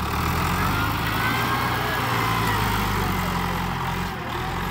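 New Holland TS90 tractor's diesel engine running steadily under load as the tractor climbs onto a pile of dirt, with a faint whine that rises and falls above the engine note.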